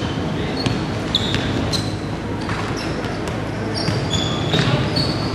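Basketball game on a hardwood gym floor: sneakers give several short, high squeaks as players cut and stop, over scattered thuds of the ball and the steady noise of a large echoing hall.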